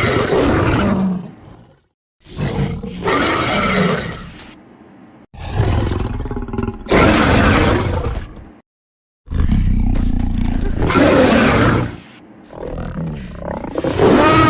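A run of about five separate roars from a made-up creature sound effect, each two to three seconds long with brief silences between.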